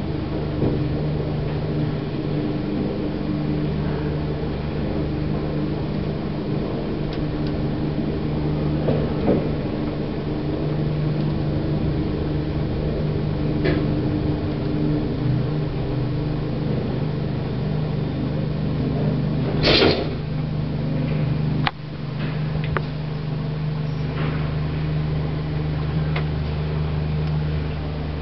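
Lift running: a steady low hum from its drive machinery, with a few clicks and a louder short rattle about twenty seconds in. The hum drops away near the end.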